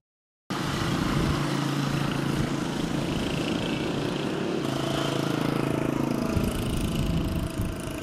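An engine running steadily with a low hum, cutting in abruptly about half a second in.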